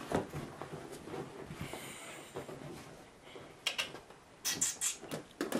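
Springer spaniel puppy scrabbling in its fabric dog bed: rustling with scattered sharp knocks and scrapes, a quick cluster of them past the middle.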